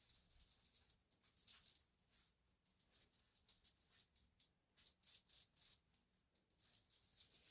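Faint, irregular rustling and light crackling of a wig's hair and lace being handled and pressed into place on the head.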